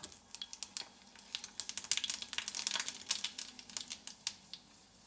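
Tarka spluttering in a small frying pan: mustard seeds popping and dry red chillies crackling in hot ghee, a quick irregular patter of sharp pops that thins out near the end.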